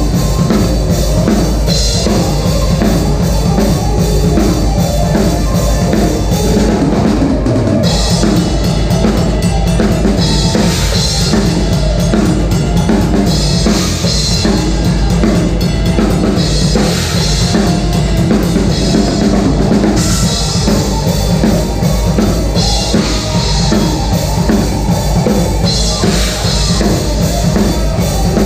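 Music with a prominent drum kit: bass drum and snare keeping a steady beat under a dense backing.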